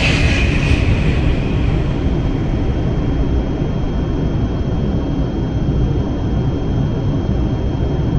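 Jet airliner engines: a loud, steady rumble, with a high whine that sinks slightly in pitch and fades in the first two seconds, and a thin steady high tone above.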